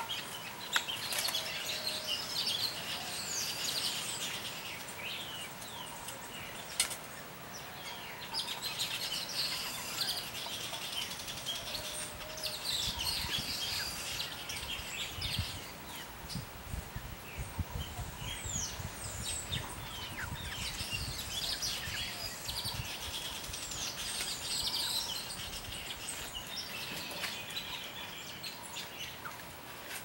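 Small songbirds, chichiguaos and Madame Sagá (village weavers), chirping and chattering over one another in bursts that come and go, with a low rumble underneath in the middle.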